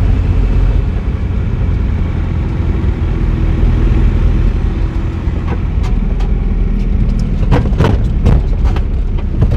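Steady low engine and road rumble heard inside a moving vehicle's cabin, with a few short knocks or clicks near the end.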